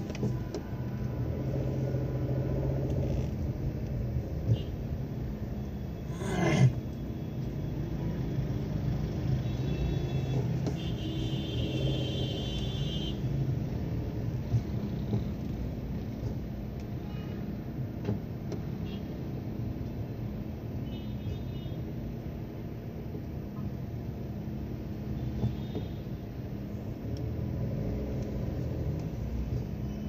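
Slow city traffic heard from inside a car: a steady low engine and road rumble. About six seconds in there is one brief loud noise, and a few short high-pitched tones sound, the longest around eleven to thirteen seconds in.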